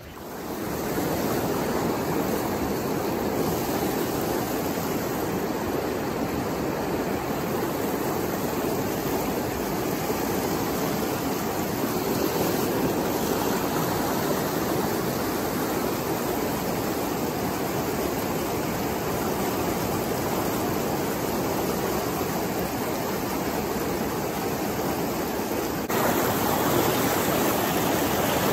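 River rapids rushing steadily over rocks and boulders. The sound is a little louder for the last couple of seconds.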